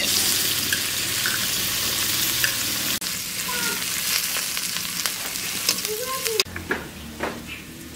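Chopped onion, garlic and green chillies hitting hot oil in a metal karahi: a loud sizzle that sets in at once, easing a little about three seconds in and dying down about six seconds in. A metal spatula clicks and scrapes against the pan as the mixture is stirred.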